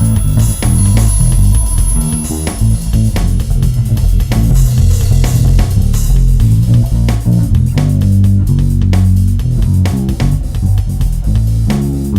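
Instrumental music: an improvised solo on a plucked string instrument, a fast run of deep, low-pitched plucked notes.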